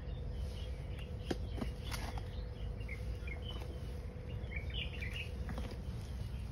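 A few sharp knocks of a tool digging into a mud-crab burrow, about a second in and twice more soon after, with scattered short bird chirps over a low rumble.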